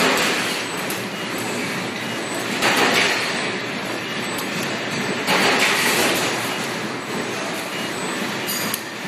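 EKO full-electric CNC servo press brake bending thin sheet metal amid steady machine noise, with three louder swells about two and a half seconds apart as the ram makes its strokes.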